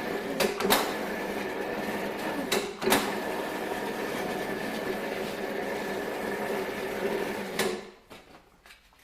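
Electric sheet-metal swaging machine running steadily while a metal band is rolled through its male swage wheels, with a few sharp clicks in the first three seconds. The motor cuts off sharply near the end.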